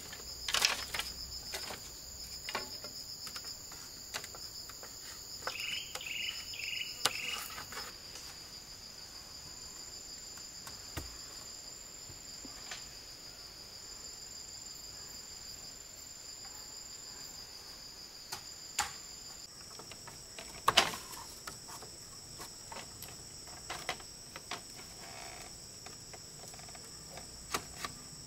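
Insects trilling in a steady, high-pitched drone, with a slight step in pitch about two-thirds of the way through. Scattered sharp knocks and clicks over it, the loudest about a second in and again about two-thirds through, and four short chirps about six seconds in.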